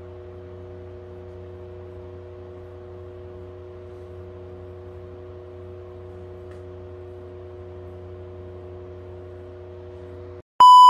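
Steady low hum made of several unchanging tones. Near the end it cuts out, and a loud, single-pitch beep starts.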